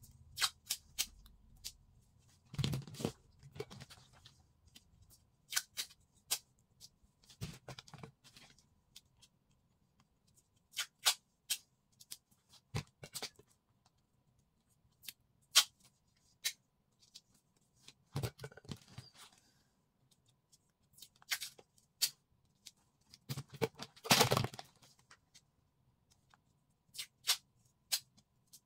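A roll of tape being pulled out in short strips, each pull a second-long tearing rasp, with sharp snips and clicks of scissors and handling in between.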